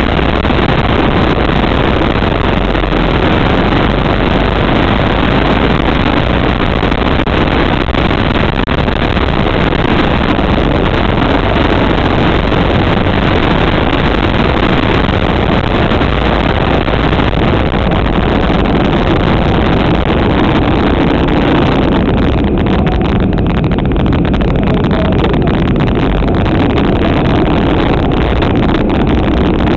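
Go-kart engine running hard, heard loud and steady from a camera mounted on the kart, with a rough mechanical drone. About three-quarters of the way through, the upper part of the sound thins out.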